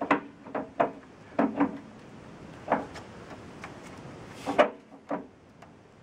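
Scattered knocks and scrapes of hands and tools working at an electric water heater's lower heating-element opening, about half a dozen separate clacks with the loudest about four and a half seconds in.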